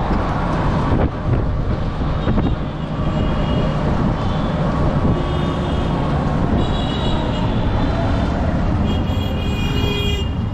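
Riding inside a CNG auto-rickshaw: its small engine running under steady road and street-traffic noise, with vehicle horns honking in short blasts several times from about three seconds in.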